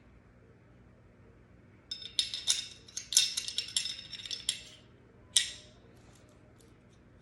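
Small metal pistol parts and cleaning tools clinking and rattling against one another on a hard surface for about three seconds, then one sharp single clink.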